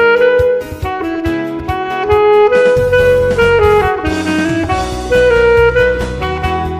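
Alto saxophone playing a pop melody of held notes and short runs, over a backing track with drums and bass.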